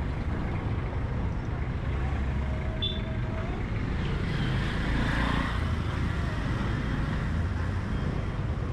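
Street traffic: the engines of passing cars, a tuk-tuk and a motorbike over a steady low rumble, with one vehicle growing louder about halfway through.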